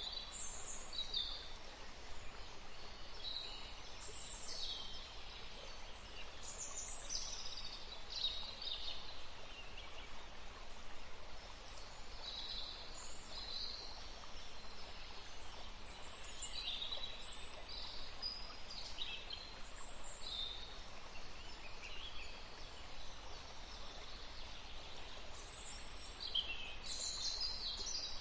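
Forest ambience: a steady rush of running water under many high-pitched bird chirps and short calls that come and go throughout, busiest near the end.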